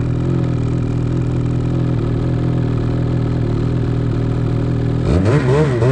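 Snowmobile engine idling steadily, then revved up and down a few times near the end as the throttle is worked.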